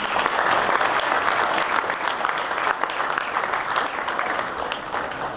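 Audience applauding, a dense patter of clapping that thins out near the end.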